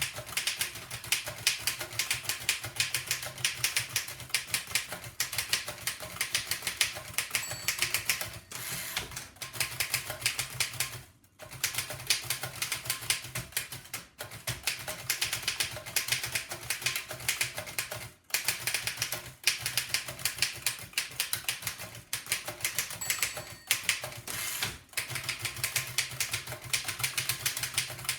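1905 Fox No. 3 upstrike typewriter typed on at speed: a rapid, continuous clatter of typebar strikes, broken by a few brief pauses.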